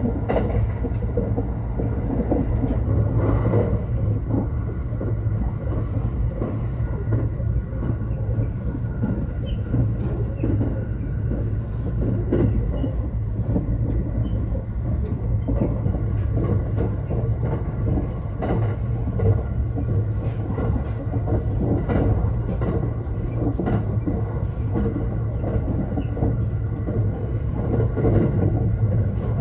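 Thunderbird limited express electric train running at speed, heard from inside the passenger cabin: a steady low rumble of wheels on rail with scattered faint clicks from the track.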